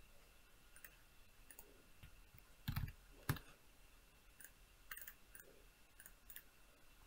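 Sparse computer keyboard keystrokes and mouse clicks over near silence, the loudest two about three seconds in.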